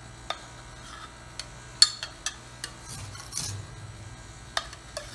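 Metal spatulas scraping and clinking on the stainless-steel cold plate of a fried ice cream machine and against a glass bowl as ice cream is scooped up. The clicks are scattered, the sharpest about two seconds in, over the steady low hum of the machine's refrigeration compressor running.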